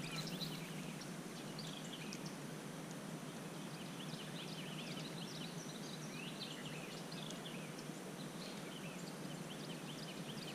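Small birds chirping on and off, many short calls throughout, over steady low background noise.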